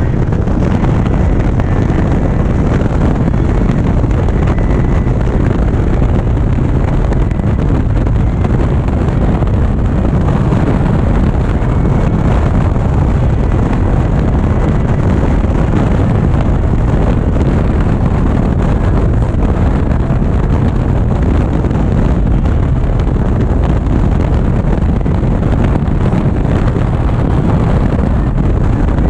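Steady wind rushing over the microphone of a motorcycle at highway speed, with the Indian Chieftain's engine and tyre noise beneath it.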